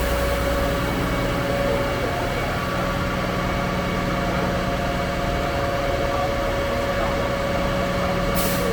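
Concrete pump truck's diesel engine running steadily, with a constant whine over it and a short hiss of air near the end.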